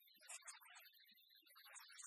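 Near silence, with only a faint, patchy hiss.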